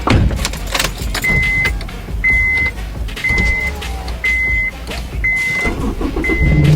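A car's warning chime beeping six times, a steady high beep about once a second, over clicks, knocks and key rattling. An engine starts right at the end.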